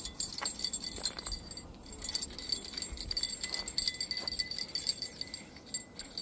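Insects buzzing in rapid, high-pitched pulses, with a faint steady whine underneath and a few sharp clicks.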